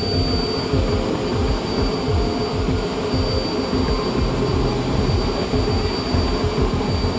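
A homemade jet engine, its combustion chamber fed by an electric centrifugal blower running at about 95%, running steadily under power. It gives an even combustion roar with a steady high whine through it.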